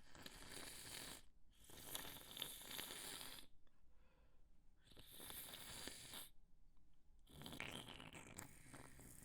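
A person breathing heavily and noisily, in four long breaths of about a second each with short pauses between them, with snort-like nasal sniffling.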